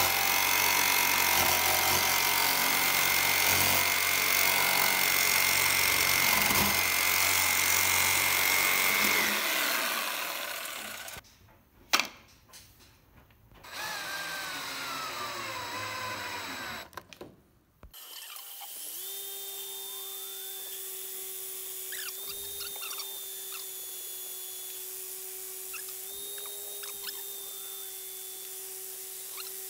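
An electric jigsaw cutting through PVC pipe for about ten seconds, then a drill briefly boring into the pipe, its pitch falling as it slows. After that, an electric drill runs steadily at one constant pitch.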